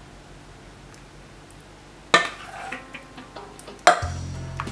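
Metal ladle clinking against a stainless steel soup pot, two sharp clinks with a short ring, about two seconds in and near the end.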